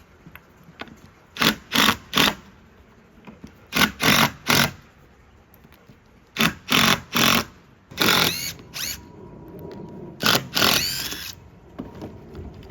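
Power drill run in quick trigger bursts, mostly three at a time, then two longer runs with a changing whine near the end, working screws out of deck boards.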